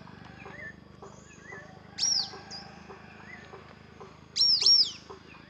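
Birds calling: a loud, high whistled call that sweeps up sharply and then falls, once about two seconds in and twice in quick succession near the end, over softer chirps from other birds.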